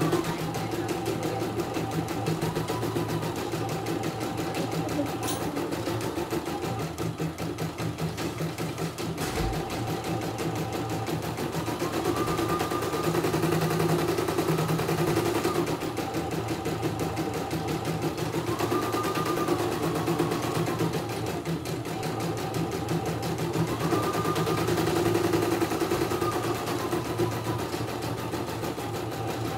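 CNY E900 computerised embroidery machine stitching out a design: a rapid, steady needle clatter, with a motor whine that rises and falls in pitch several times as the hoop is driven around.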